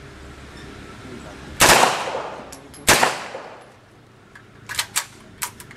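MKE MP5 9 mm submachine gun fired semi-automatically: two single shots about a second and a half apart, each with a long echo. Three fainter sharp cracks follow near the end.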